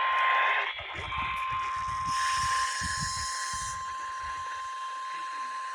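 NOAA Weather Radio warning alarm tone, a single steady pitch of about 1050 Hz, sounding ahead of a new National Weather Service warning. It plays over hiss and crackle of radio static, with the hiss brightening for a second or two near the middle.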